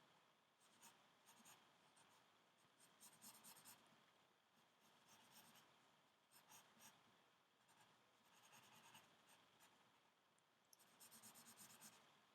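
Faint scratching of a pen or pencil drawing on paper, in quick groups of short strokes every second or two.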